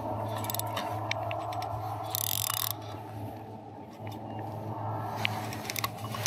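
Feeder rod's spinning reel working on a heavy fish: scattered mechanical clicks and scraping from the reel as the drag is loosened to protect a very thin leader, with a short burst of noise about two seconds in. A steady low hum runs underneath.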